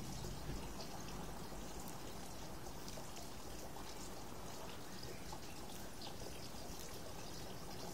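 Tortoise eating lettuce: faint, irregular crunching clicks as it bites and chews the leaf, over a steady background hiss and low rumble.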